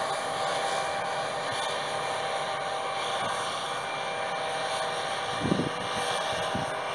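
John Deere combine harvester at work in wheat, a steady machine drone with a faint even whine through it. There are a few low bumps about five and a half seconds in.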